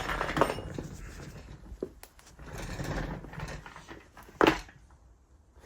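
Workshop handling noises from motorcycle engine parts being moved: scraping and rustling, with one sharp knock about four and a half seconds in.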